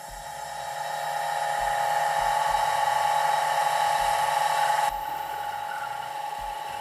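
Watchmaker's lathe running with a steady high whine while a hand graver turns down the end of a 1.8 mm rod toward 1.4 mm. The hiss over the whine drops away suddenly about five seconds in.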